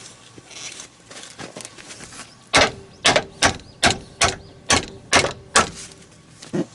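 Hammer blows on metal during work on a snowcat's rubber track joint: eight sharp strikes about three a second with a faint ring, starting a few seconds in, then one lighter strike near the end.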